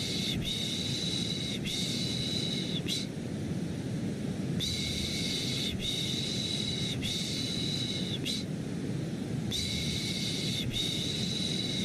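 Rhythmic baby-soothing shushing, 'shh-shh-shh-shh' in sets of four hisses with a short break between sets, over a steady low rushing white noise.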